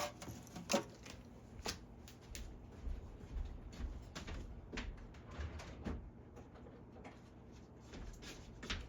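Scattered light clicks and taps from small parts being handled, with faint low rumbles coming and going in between.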